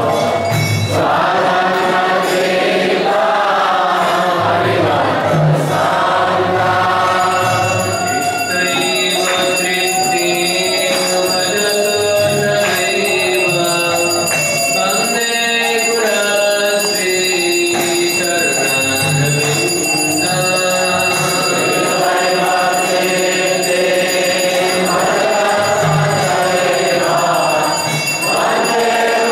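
A group of voices chanting a devotional Hindu hymn (kirtan) in unison with instrumental accompaniment and a low, regular drum beat. High, steady ringing tones join about seven seconds in and carry on under the singing.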